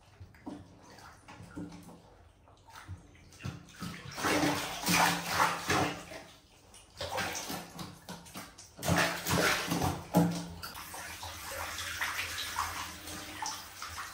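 Bath water splashing and sloshing in a tub as an animal is washed. There are two louder spells, one about four seconds in and another about nine seconds in, with lighter water sounds after.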